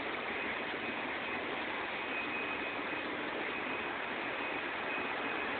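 Steady rushing and bubbling of water from the filters and aeration in a hall of aquarium tanks, with a faint steady high tone.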